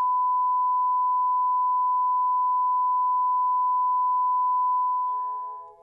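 Steady pure test tone that plays with colour bars, one unbroken beep held at a single pitch, fading out near the end.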